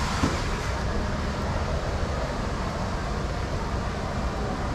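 Steady background rumble and hiss, with one short click about a quarter of a second in.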